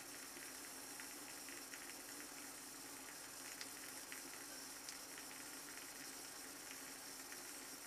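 Shavette razor with a pre-cut half double-edge blade scraping through lather and stubble on the cheek: a faint, steady scratchy hiss with a few small ticks.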